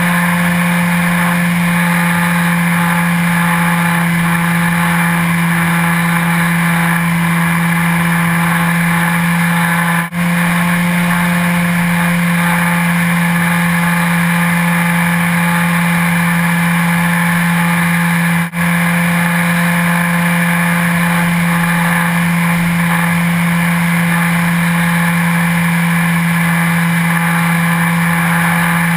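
Remote-control airplane's motor and propeller heard from its onboard camera: a loud, steady drone at one unchanging pitch with a higher whine over it, cutting out for an instant twice, about ten and eighteen seconds in.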